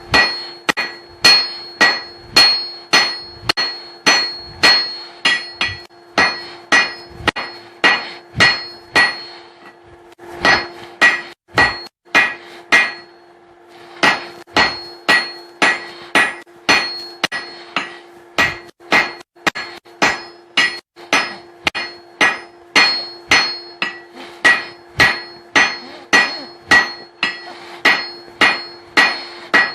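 Blacksmith's hand hammer striking steel on an anvil in a steady rhythm of about two blows a second, each blow ringing, with a short pause about twelve seconds in before the blows resume.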